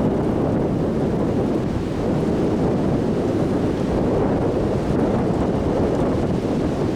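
Strong wind blowing steadily against the microphone, a loud low rushing noise with no breaks.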